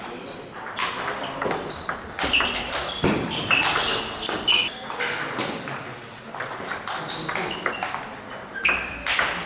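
Table tennis rally: the ball clicking off the paddles and the table again and again in quick succession, in a large hall.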